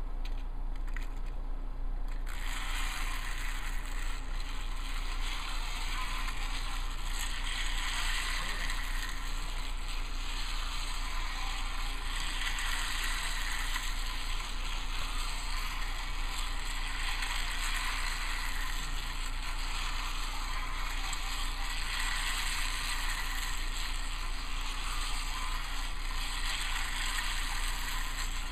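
Plastic wheels of a Trackmaster push-along Rebecca toy engine rattling and clicking as it is pushed by hand along plastic Trackmaster track. It starts about two seconds in and goes on continuously, growing louder and softer by turns, over a steady low hum.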